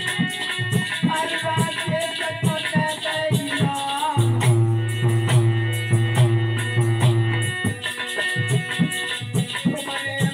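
Harmonium playing an instrumental passage of Aalha folk music, with a long held chord a little past the middle. A hand drum beats steadily underneath, with a rattling percussion.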